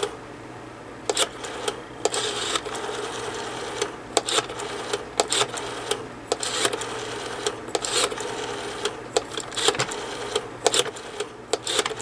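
Rotary telephone dial on a RadioShack 43-326D corded phone being pulled around and let go digit by digit, its return mechanism sending out runs of sharp clicks. A steady tone runs under the clicks.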